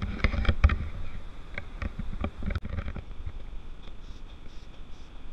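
Handheld camera noise: wind rumbling on the microphone, with irregular knocks and rustles from the camera being handled and carried. The knocks are thickest in the first second.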